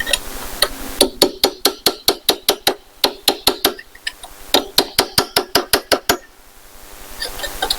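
Hammer tapping a chisel against the small steel rivet heads of a cabinet lock, in two runs of quick light metallic taps, about five a second, with a short pause between.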